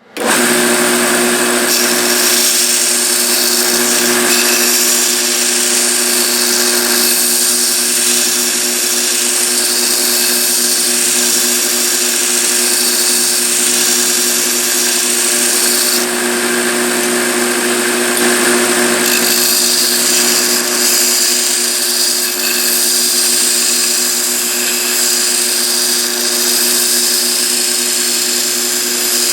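Electric abrasive power tool running steadily on the steel plane iron, a motor hum under a harsh hiss that shifts a few times.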